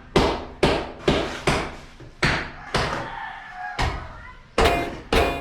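A ceramic wall tile being tapped into its bed of tile glue and cement to set it straight: a run of sharp knocks, about two a second, with a pause of over a second in the middle.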